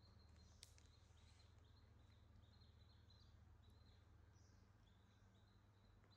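Near silence: a faint steady low hum, with a faint, broken high-pitched chirping tone over it and one soft click about half a second in.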